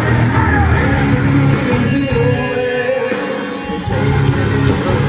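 Live rock band playing loud on stage: guitars, drums and a singing voice carried over the PA.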